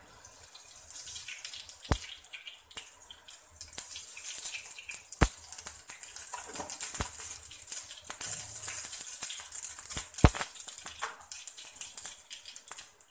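Mustard seeds sizzling in hot sunflower oil, with a steady high sizzle and a few sharp pops as seeds burst. This is the spluttering stage of tempering.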